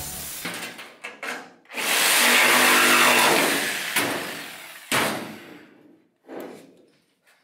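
Hand-held power saw cutting through the sheet-metal floor of an old Ford F100 pickup bed for about three seconds, then fading away. A sharp knock comes about five seconds in.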